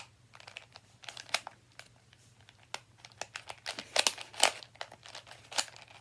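The plastic layers of a stiff dollar-store Rubik's cube clicking and scraping in irregular snaps as they are forced to turn, the cube turning hard. The clicks come thickest and loudest about two-thirds of the way through.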